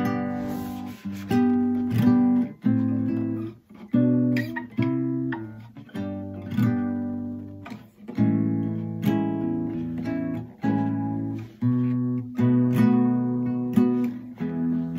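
Harley Benton HBO-850 nylon-string roundback electro-classical guitar played acoustically, not plugged in: chords strummed and picked, a new chord every half second to a second, each left ringing.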